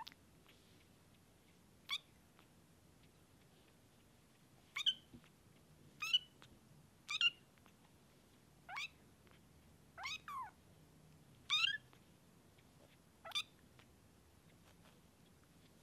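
A very young Bengal kitten mewing: about nine short, high-pitched mews, one to two seconds apart, several sliding down in pitch.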